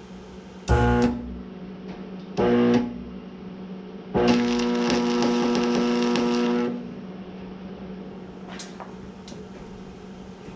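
Electric arc welder striking three times: two short tack welds, then a weld bead of about two and a half seconds, each a loud electric buzz with arc crackle that starts and stops abruptly.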